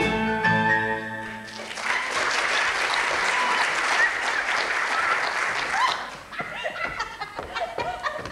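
A song's accompaniment holds its last notes and stops about one and a half seconds in, then an audience applauds until about six seconds in, after which the clapping dies away to scattered faint sounds.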